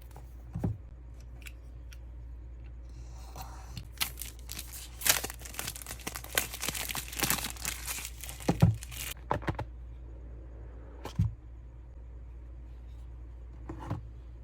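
Packaging of an Apple Magic Mouse box being torn open and crinkled: a run of tearing and rustling in the middle, with a few short low thumps before and after.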